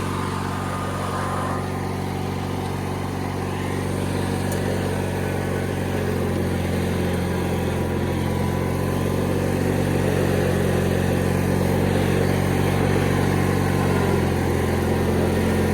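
Engine of a 1997 MTD Yard Machines riding lawn mower running steadily with its cutting deck engaged, still warming up after a hard cold start.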